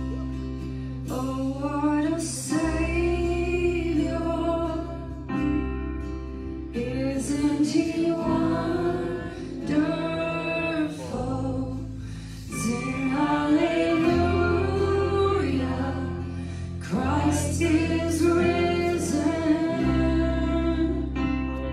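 Live contemporary worship band playing a slow song: women's voices singing the melody together over electric guitar, bass guitar and drums, with long bass notes changing every few seconds.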